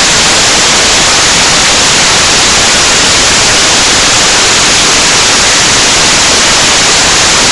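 Loud, steady static hiss like white noise, perfectly even in level, typical of a digital recording glitch rather than any sound in the scene.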